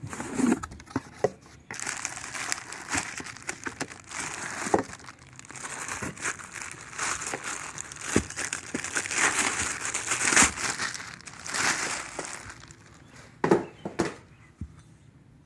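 Packaging crinkling and crumpling as it is handled, with scattered knocks: the new wheel hub assembly being unwrapped. The crinkling runs for about ten seconds, with a few sharper knocks near the start and near the end.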